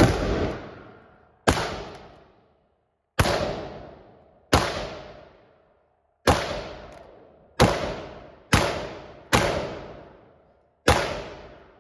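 Rifle fired in single shots, nine shots roughly one to two seconds apart, each followed by a ringing echo that dies away in the enclosed indoor range.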